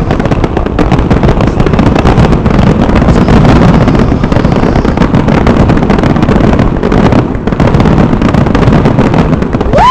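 A fireworks display going off in a dense, unbroken barrage of bangs and crackles, very loud throughout.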